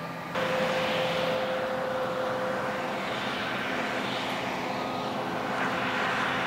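A John Deere combine harvester running: a steady, drone-like machine noise with a whine held for the first couple of seconds. The sound jumps suddenly louder just after the start.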